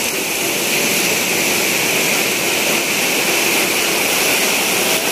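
Waves breaking on a sandy beach, a steady rushing noise with no pauses.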